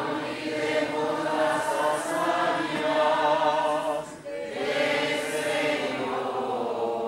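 A group of voices singing a church hymn together in long held notes, with a short breath about four seconds in.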